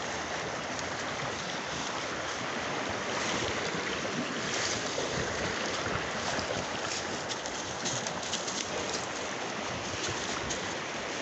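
Steady rushing of a nearby river mixed with wind buffeting the microphone, with light crunching of dry leaves underfoot from a few seconds in.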